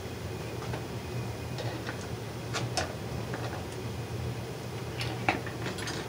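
Scattered light clicks and taps from wires and hand tools being handled, a pair about two and a half seconds in and a sharper one about five seconds in, over the steady hum of a running box fan.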